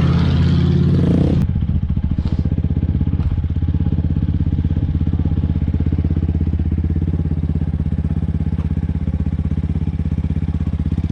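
1998 Dodge Ram 2500 pickup's engine running at low, steady revs with a fast, even exhaust pulse. About a second and a half in, a louder rushing noise over it stops abruptly.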